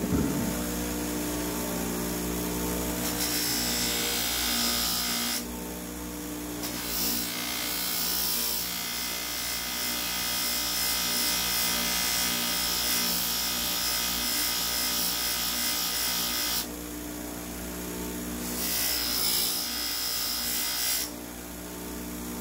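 Electric bench buffer with a stitched cloth buffing wheel running with a steady motor hum. A steel lopping-shear blade is pressed against the spinning wheel three times, adding a hissing whir while in contact, the longest pass about ten seconds in the middle, as the blade's high spot is polished.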